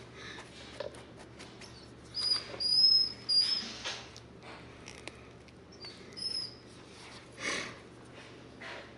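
A dog whining in short, thin, high-pitched squeaks, several close together about two to three and a half seconds in and again once or twice later.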